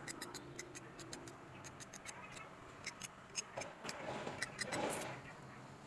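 Irregular light clicks and ticks, with a short rustle about four to five seconds in, from a radiator fan motor's wound armature being handled and turned over.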